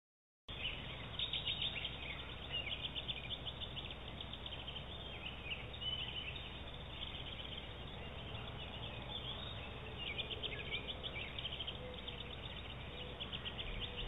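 Woodland songbirds chirping and singing in short, repeated trills, starting about half a second in, over a steady low hum.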